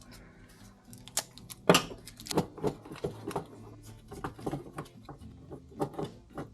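Small metal carburetor parts clicking and knocking as they are handled and fitted by hand: a string of irregular sharp taps, the loudest one about two seconds in.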